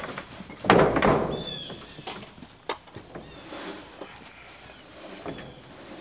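Crickets chirping steadily in the background, with a loud rustling thump about a second in and a few light knocks later, as sheep and people move about in a straw-bedded wooden pen.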